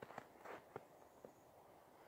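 A few faint crunches of boots shifting on snow, four short ones in the first second and a quarter, then a faint steady hiss of quiet outdoor background.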